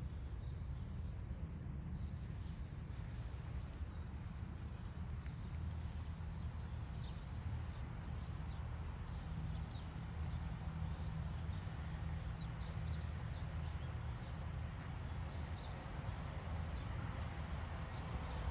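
Outdoor ambience: a steady low rumble with a faint haze of background noise, and scattered short, faint bird chirps.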